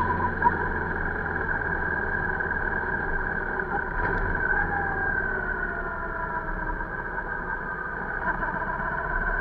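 Motorcycle engine running under way, heard from the bike's own mounted camera, with a steady low hum and an engine note that drifts gently up and down as the revs change.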